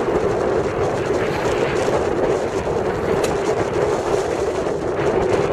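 Steady rumble of a small motorboat running across choppy water, mixed with wind buffeting the microphone.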